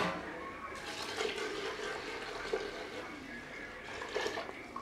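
Very hot water poured into a metal pot of ghee-fried biryani rice, splashing steadily for about three and a half seconds, with a click of the pouring vessel against the pot at the start.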